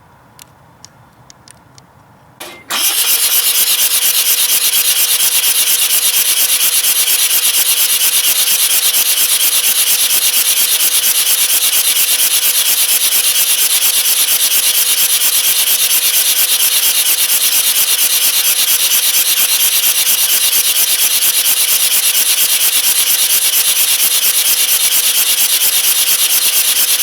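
Mazda RX-7 rotary engine cranked over by its starter with the EGI fuse pulled and the spark plugs out, so it spins without fuel or spark and doesn't fire. This is a cranking test for water or oil in the rotor housings. A steady, loud, fast-pulsing cranking noise starts about three seconds in and keeps going, after a few faint clicks.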